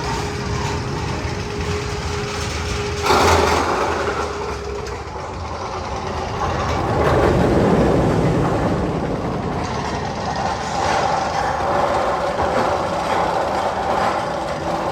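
Magnum XL 200 steel roller coaster train rumbling and clattering along its track, with a sudden louder burst of noise about three seconds in and another swell a few seconds later.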